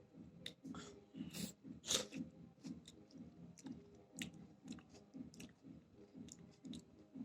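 Close-up mouth sounds of someone chewing a raw tomato eaten with salt: an even rhythm of wet chewing, about three chews a second, with sharp smacking clicks, the loudest about two seconds in.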